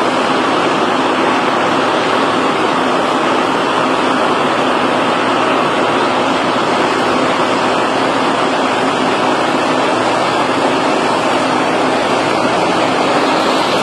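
Heavy road-building machinery running with a steady, even noise and a faint constant hum.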